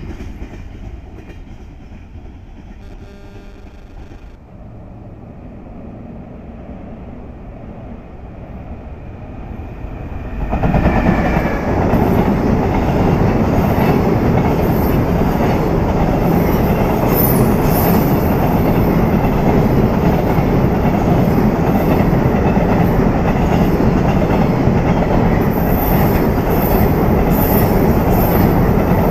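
JR Freight container train on Koki flat wagons: at first a train heard faintly at a distance, then from about ten seconds in a loaded container train passing close by, its wheels running loudly and steadily over the rails. A few brief high-pitched squeals come from the wheels near the middle and toward the end.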